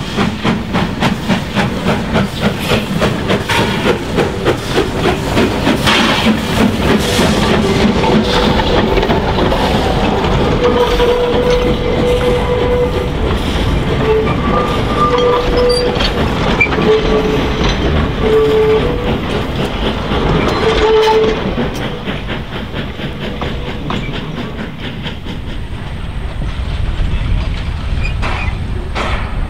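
Hunslet tank steam locomotive working along the line, its exhaust chuffing in an even rhythm over the running gear. Through the middle a thin, high tone comes and goes in short stretches. The sound eases off somewhat in the last part.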